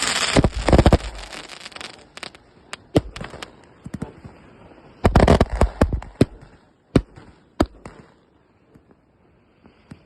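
Pirobrasil 'Girandola 468 Mista' firework battery going off in rapid sharp bangs. A dense volley of reports comes in the first two seconds, then scattered single bangs, another dense volley about five seconds in, and spaced-out bangs that thin out near the end.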